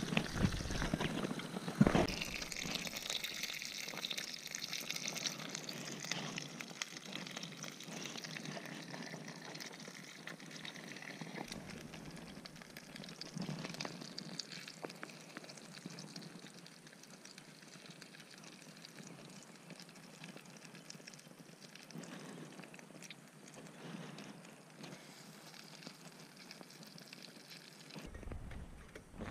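Meat skewers sizzling steadily on the hot plate of a grill pan over a gas cartridge stove, with one sharp clack about two seconds in.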